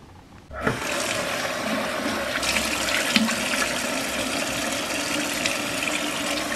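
Tap water running in a steady stream into a bathroom sink, starting about half a second in, with irregular splashing from hands washing a face over the basin.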